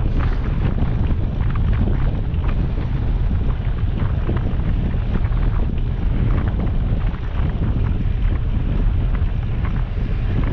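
Wind buffeting the microphone of a GoPro Hero 7 on a moving bicycle: a steady, loud low rumble with irregular gusty bumps.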